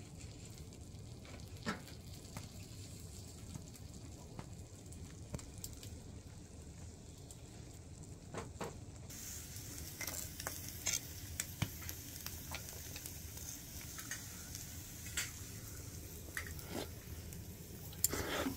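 A grilled scallop sizzling in its half shell, hot from the wood stove, with scattered light clicks of metal utensils. The sizzle comes in about halfway through.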